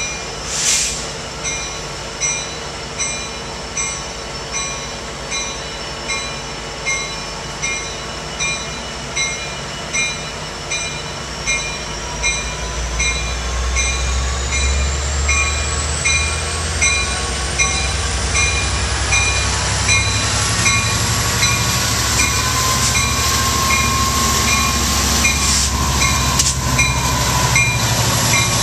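Amtrak F59PHI diesel locomotive moving through the station with its bell ringing steadily, about three strikes every two seconds. A brief hiss comes about a second in. From about twelve seconds in, the locomotive's engine rumble grows louder as it comes close and passes, with a high whine that rises and then falls.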